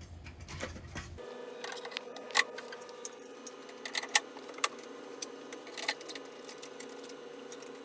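Scattered light clicks and taps of plastic parts being handled and fitted together on the machine's accessory bracket, over a steady faint hum that starts about a second in.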